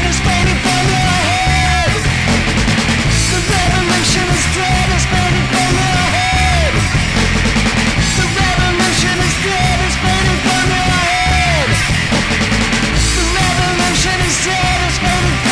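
Loud, dense punk rock with a heavy low end. A held high note is repeated and slides downward at its end about every two and a half seconds.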